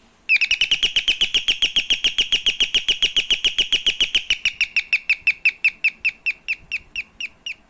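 Arrostar Parrot electronic doorbell playing its bird-chirp tune through its speaker: a fast, even run of high chirps that slows over the last few seconds. The freshly repaired circuit board is working on 220 V AC mains.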